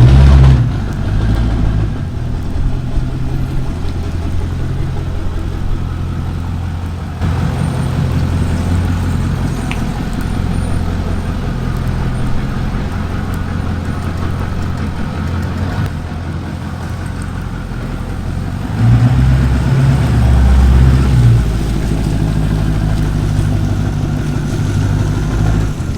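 Diesel pickup truck engine running steadily on the road, louder for a couple of seconds about two-thirds of the way through.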